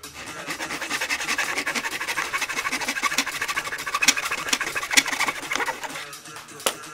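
Fine-toothed hand saw cutting a thin strip of softwood in a plastic miter box, a steady run of rasping strokes. The sawing stops about six seconds in as the piece is cut through, and a single knock follows near the end.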